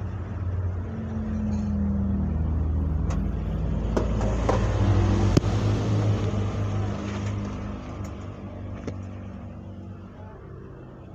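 A motor vehicle passing close by on the street, its engine growing louder over the first couple of seconds and fading away after about eight seconds. A few sharp clicks sound near the middle.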